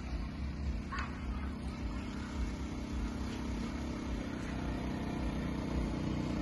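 Steady low rumble of a moving passenger train heard from inside the carriage, slowly growing louder, with one short squeak about a second in.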